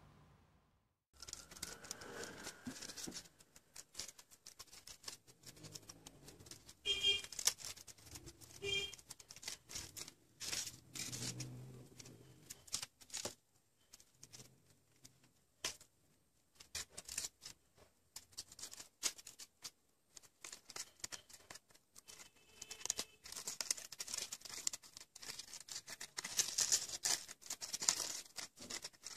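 Crepe paper crinkling and rustling in irregular crackles as the petals of a paper lily are handled and pressed together around the stem, busiest near the end.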